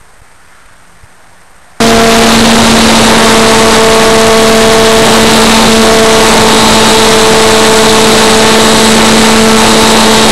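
Faint quiet, then suddenly about two seconds in a very loud, steady whine of an RC foam airplane's electric motor and propeller over a heavy rushing hiss, picked up by a camera riding on the plane in flight. The pitch holds steady, as at a constant cruising throttle.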